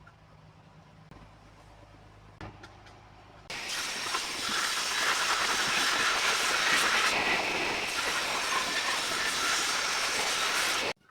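Power tool shaping wood into a dowel: a loud, steady rushing noise that starts abruptly about three and a half seconds in and cuts off just before the end. Before it there is only a faint low hum and a few light clicks.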